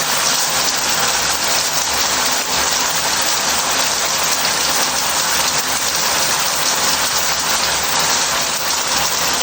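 Shower head running into a bath, a steady hiss of water spray pattering on the surface.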